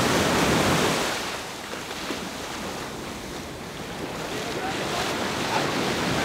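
Ocean surf breaking and washing up the beach, with wind buffeting the microphone. The wash is loudest in the first second, drops away for a few seconds, then builds again near the end.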